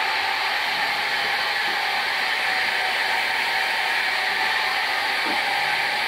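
Hand-held hair dryer blowing at close range: a loud, steady rush of air with a faint whine, cutting in at full strength at the start.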